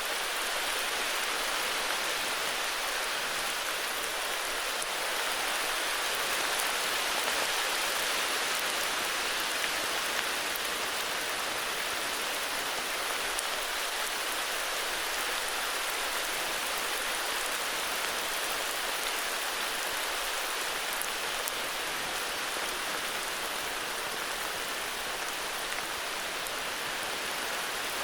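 Heavy rain falling steadily, a dense even hiss of drops with faint individual drop ticks and no thunder.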